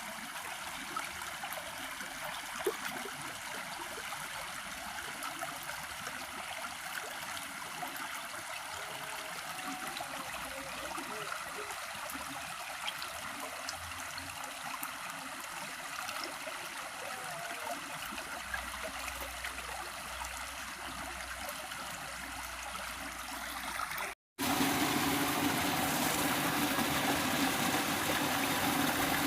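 Steady rush of flowing water. About 24 seconds in, after an abrupt cut, a louder steady engine hum takes over.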